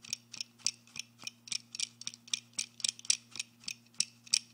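Rapid, even ticking, about four ticks a second, over a steady low hum.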